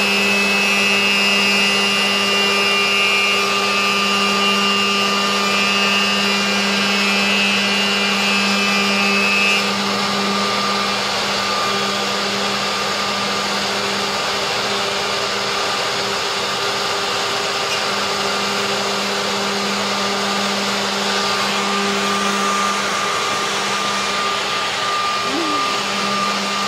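CNC router spindle running while its end mill cuts an aluminium alloy sheet, with the dust-extraction hose drawing air: a steady hum under a high whine. A set of higher ringing tones stops about ten seconds in, and the whole sound gets slightly quieter.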